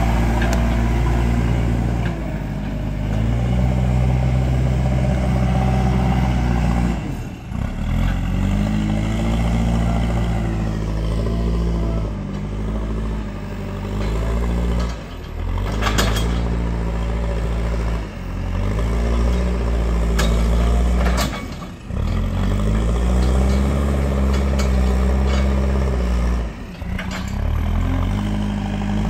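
JCB 4CX backhoe loader's four-cylinder diesel engine working under load as the machine drives through mud and moves soil with its front bucket. The engine speed rises and falls repeatedly and dips sharply four times, and a few sharp metallic clanks come in the middle.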